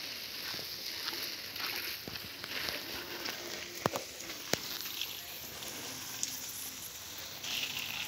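Stream of water spraying and splashing onto leaves and soil as plants are watered: a steady hiss, with a couple of short ticks about four seconds in.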